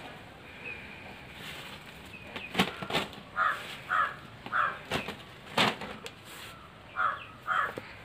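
Leafy mulberry branches tossed onto silkworm rearing beds, giving a few sharp rustling knocks. A bird calls five times, three short calls in the middle and two near the end.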